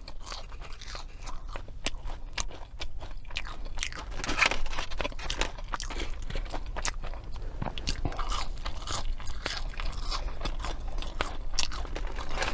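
Close-miked chewing of crunchy fast food, with irregular crisp crunches and wet mouth sounds.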